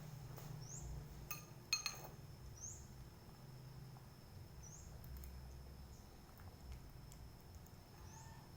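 Quiet eating with a few light clinks of cutlery against a bowl, about a second or two in. Faint short rising chirps come about every two seconds over a low hum.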